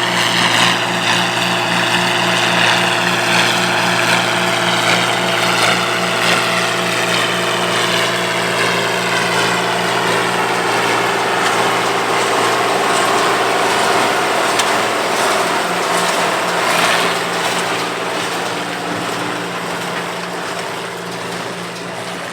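Minneapolis-Moline G850 tractor running steadily under load while pulling a hay baler through the field. The sound fades down over the last few seconds.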